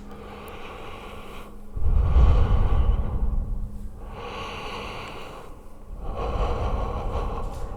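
A person breathing heavily and slowly, close to the microphone, for a horror effect: about two full breath cycles, with the louder, lower breaths starting about two seconds in and again about six seconds in.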